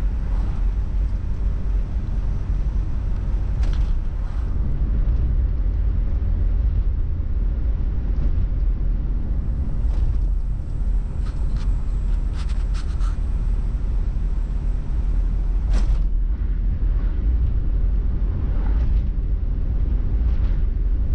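Car driving along: a steady low engine and road rumble, with a few short clicks and knocks, the loudest about two-thirds of the way in.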